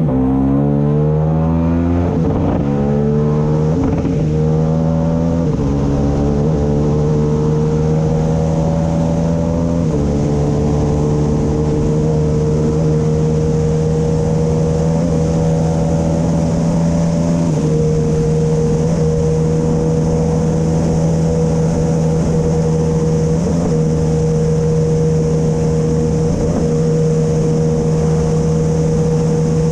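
KTM 890 parallel-twin engine of a racing sidecar outfit, recorded onboard, pulling hard: its pitch climbs and steps with gear changes several times in the first few seconds, then runs at near-steady high revs with a few small jumps. Wind rush on the microphone runs underneath.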